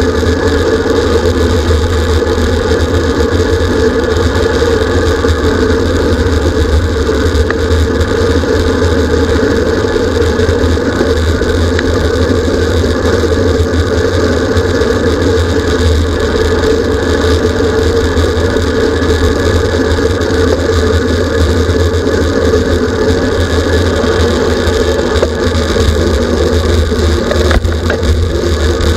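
Steady wind and road noise from riding a racing bicycle at speed, heavy rumble of wind buffeting the camera's microphone, unbroken throughout.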